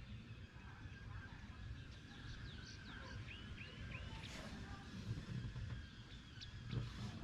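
Faint outdoor ambience: small birds chirping, including a run of three short rising chirps in the middle, over a steady low rumble.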